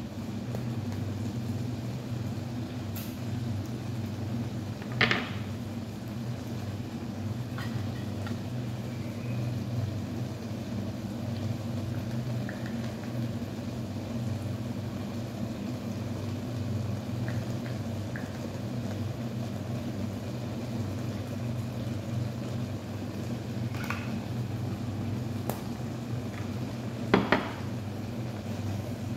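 Steady low hum in a kitchen while ground chicken cooks in a wok, with a few sharp knocks of utensils against the pan, one about five seconds in and a quick double knock near the end.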